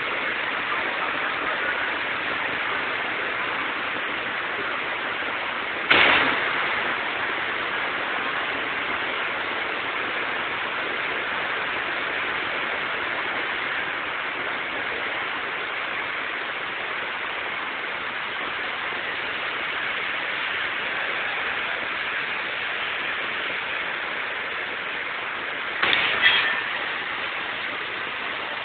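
Heavy rain falling, a steady hiss recorded through an old Nokia phone's microphone. Two sharp bangs cut through it, one about six seconds in and a double one near the end.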